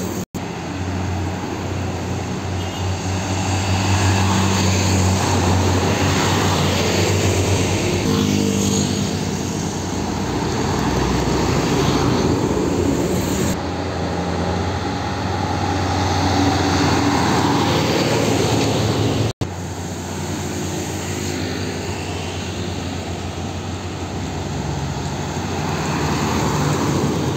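Heavy diesel trucks passing on a road, their engines droning with tyre and road noise, the sound swelling as each goes by. It cuts out for an instant twice, near the start and about two-thirds of the way through.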